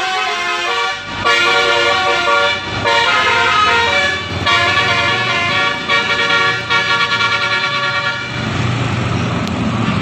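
Telolet-style 'basuri' melodic horns playing stepping multi-note tunes, several horns overlapping and answering one another, with short breaks between phrases. Near the end a low rumble rises beneath the horns.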